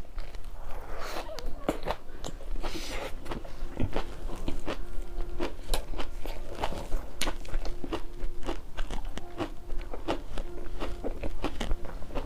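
A person chewing a mouthful of raw leafy greens, with many short, irregular crunches.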